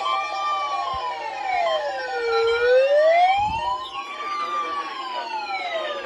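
A wailing siren, its pitch rising and falling slowly about every four seconds, with fainter siren sweeps and steady tones layered over it.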